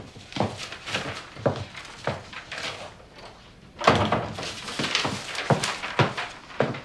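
A door opening, then footsteps and thuds on a wooden floor as someone walks into a small room, with a louder cluster of knocks about two thirds of the way in.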